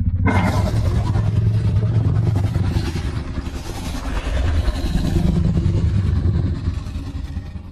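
A fan-made Godzilla sound effect: a loud, rumbling kaiju sound that cuts in suddenly, holds for about seven seconds and fades out near the end.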